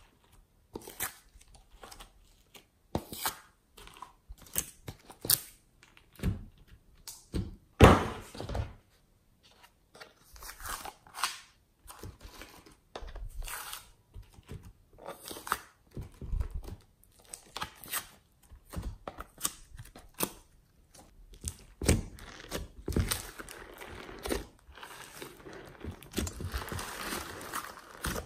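Hands handling soft clay shapes, slime and loose sequins in a clear tub: irregular taps, thuds and crinkles, with one louder thud about a quarter of the way in. From about three-quarters of the way through, a denser run of handling noise as the clay is kneaded into the slime.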